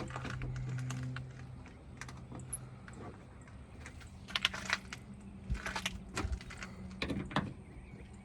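Light clicking and rattling of small metal screws and latch parts being fitted by hand, in short clusters about four, six and seven seconds in, after a brief low hum in the first second.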